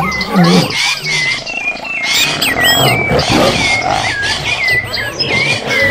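Animal sound effects: a low growl in the first half-second, then a rough, noisy stretch, with high whistled chirps sweeping up and down and repeating throughout.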